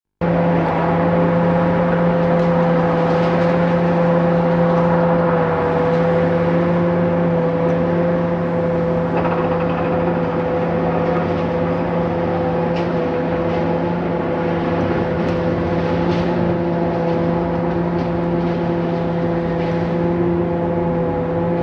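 A steady mechanical hum, one unchanging pitch with overtones, with a few faint clicks over it.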